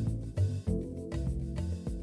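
Background instrumental music, with new notes coming in about twice a second.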